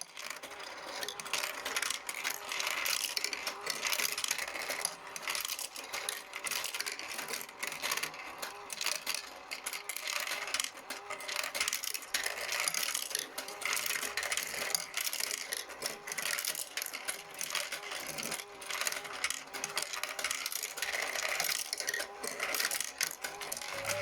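ROKR Future City marble run kit running: balls rolling and clattering along the tracks and lifts, a dense continuous rattle of small clicks over a faint steady motor hum.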